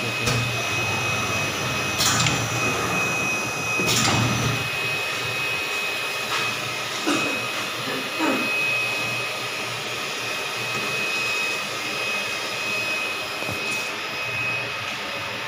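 A 20x30 jet screen printing machine running, its blower making a steady rushing noise with a thin high whine. Sharp clacks from the machine come about 2 and 4 seconds in, with a few fainter knocks later.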